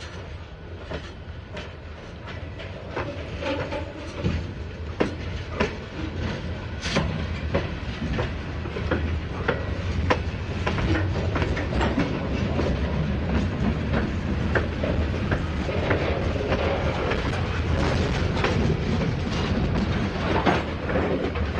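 A cut of covered hopper cars being shoved slowly past at close range, the wheels clicking and clanking irregularly on the rails over a low rolling rumble. It grows louder over the first ten seconds as the cars come alongside.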